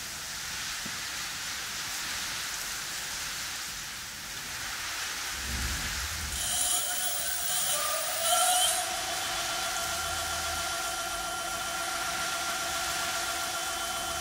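Direct-drive brushless gearless hub motor of a 48V/52V 1500 W e-bike kit spinning the unloaded rear wheel. About six seconds in, its electric whine sets in over a steady hiss, rises in pitch, then holds steady with several tones.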